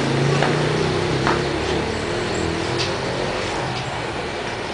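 Steady low engine hum over a haze of background noise, the hum fading after the first second or so, with a few faint clicks.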